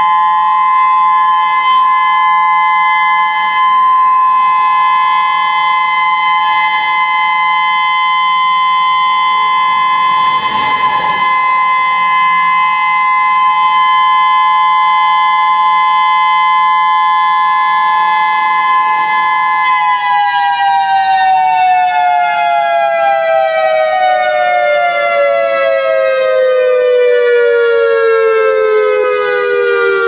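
Federal Signal EOWS 612 electronic tsunami warning siren sounding its steady alert tone, loud, two close notes near 1 kHz sounding together. About twenty seconds in the pitch begins to fall slowly and keeps sliding down as the siren winds down at the end of its one-minute test. A brief rush of noise passes under it about ten seconds in.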